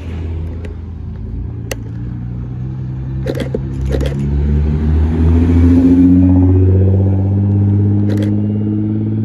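Nissan GT-R's twin-turbo V6 pulling away and accelerating, its note rising and getting louder about halfway through, then holding steady.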